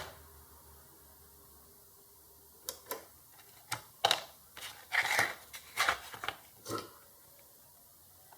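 Irregular clicks and short scrapes from tools and a circuit board being handled on a workbench, about a dozen over four seconds, starting a few seconds in.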